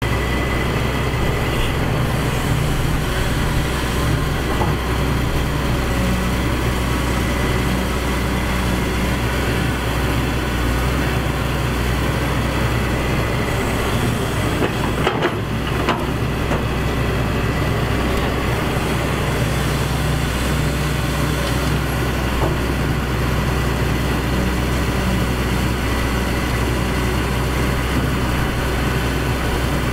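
Heavy excavator's diesel engine running steadily under load while digging, with a brief dip and a couple of knocks about halfway.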